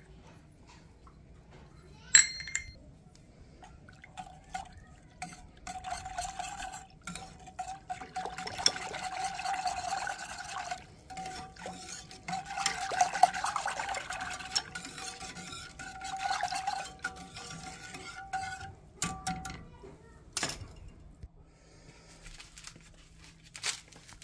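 Whisk mixing sauce ingredients in a stainless steel saucepan, scraping and clinking against the pan in quick strokes for about fifteen seconds. A sharp metallic clink comes about two seconds in, and a knock or two near the end.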